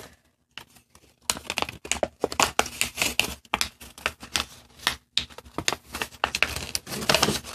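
Origami paper crinkling and crackling as it is folded and pressed into creases by hand, in quick uneven crackles that start about a second in.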